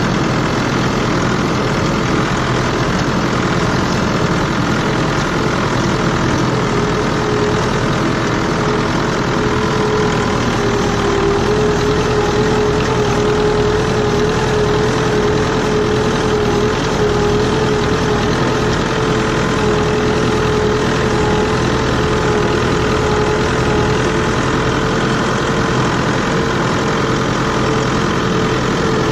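Tractor engine running steadily, with a thin steady whine coming up over it about a third of the way through.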